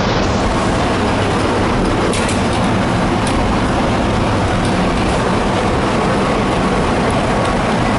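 Tatra tram running along the track, a steady rumble of wheels on rails heard from on board, with a few faint clicks.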